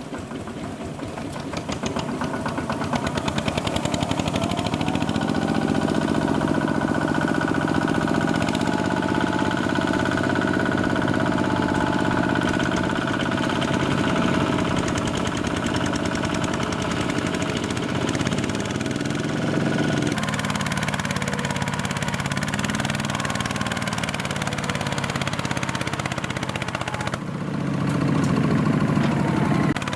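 Small single-cylinder Kubota diesel engine of a mini trailer-tractor running under load. Its sound builds over the first few seconds, changes about two-thirds of the way through, and grows louder near the end.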